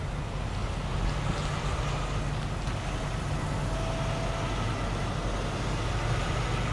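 Diesel engine of a semi tractor-trailer running steadily as the truck rolls slowly past at low speed, a constant low engine note.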